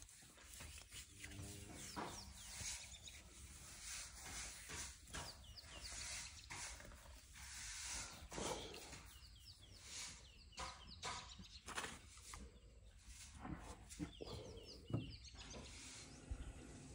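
Faint rustling and scratching of a hand rubbing a baby elephant's rough skin, in short irregular strokes, with birds chirping now and then in the background.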